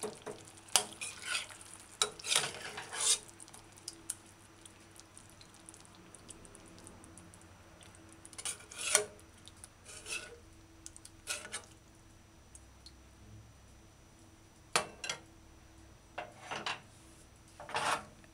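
A metal spoon scraping and clinking against a stainless steel saucepan and a ceramic plate as stew is spooned out. The sounds come in short, separate strokes with quiet pauses between them.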